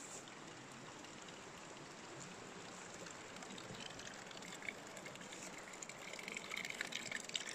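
Faint, steady trickle of water: a thin stream running from a spout in a tree trunk into a small basin. It grows a little louder near the end, with a few light crackles.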